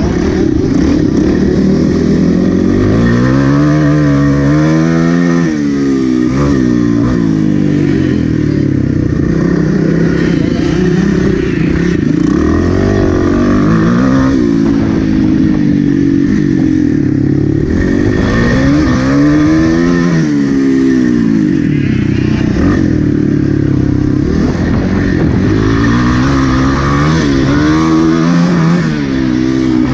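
Single-cylinder four-stroke engine of a Kawasaki KLX dirt bike, heard from on board, revving up and falling back again and again as the rider works the throttle and gears.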